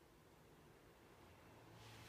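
Near silence: room tone, with one brief faint rustle at the very end.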